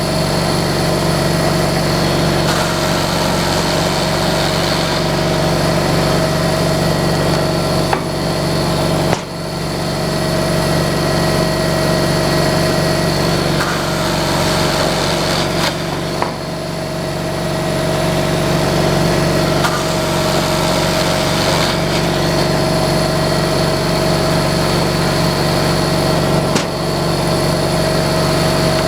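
Sawmill engine running steadily, with three brief dips in the sound.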